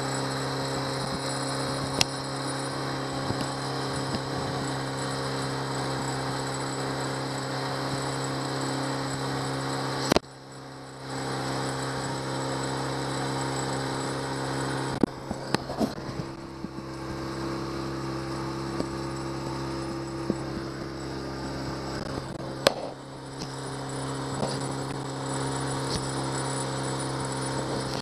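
Honda 8 hp four-stroke outboard kicker motor running at a steady throttle, pushing the boat along, with water rushing past the hull. A few sharp knocks come through, the loudest about two, ten and twenty-three seconds in.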